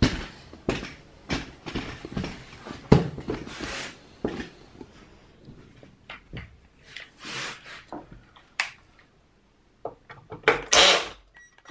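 Irregular handling knocks, clunks and scrapes as a heavy concrete speaker base is moved and turned about on a workbench, with a louder, longer scraping stretch near the end.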